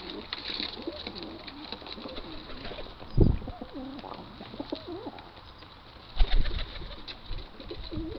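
Pigeons cooing in low, bending calls, with two loud low thumps, one about three seconds in and another about six seconds in, and light ticking throughout.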